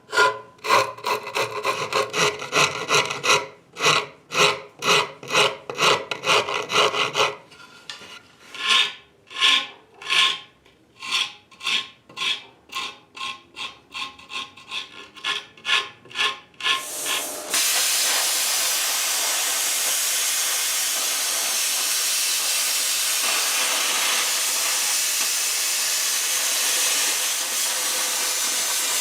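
Hand filing strokes, a file or rasp pushed back and forth over a rough jigsaw-cut edge to clean it up, about two to three strokes a second. About seventeen seconds in the strokes stop and a steady hiss takes over.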